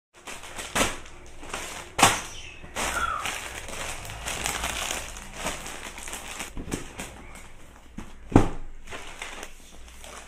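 Plastic packaging and gift-wrapping paper crinkling and crackling as they are handled, with a few sharper rustles and knocks, the loudest about two seconds in and about eight seconds in.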